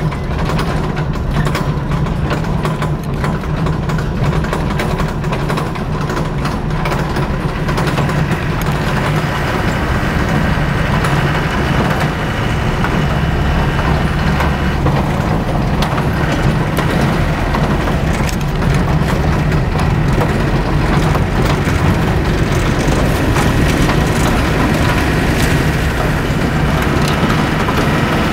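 Engine drone and road noise heard inside the cab of an old utility vehicle being driven, steady throughout, with many small rattles and knocks from the bodywork.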